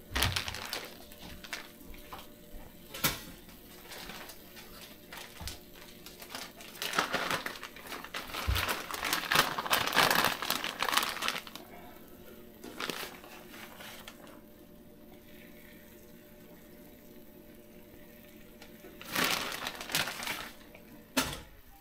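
Cooking on a Blackstone flat-top griddle: food sizzling, with scattered clicks and scrapes. The sizzle swells about seven seconds in and again near the end.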